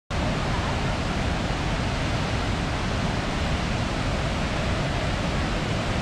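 A large waterfall crashing down a rock face into a plunge pool: a steady, unbroken rush of falling water.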